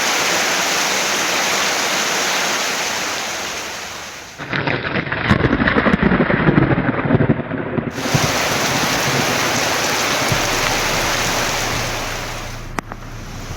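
Rain falling steadily as an even hiss. A louder, coarser stretch of rain about four to eight seconds in, then steady rain again that eases slightly near the end, with a single click.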